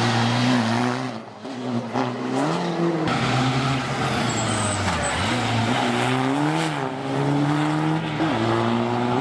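ŠKODA Fabia RS TDI rally car's turbodiesel engine revving hard on a stage run, its pitch climbing under acceleration and dropping sharply several times on lift-off and gear changes.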